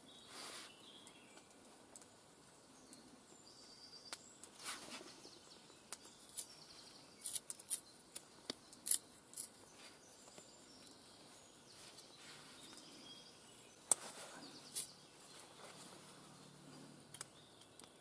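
A Mora 510 knife shaving curls off a wet conifer stick while making feather sticks: irregular short scraping cuts, a few of them sharper and louder.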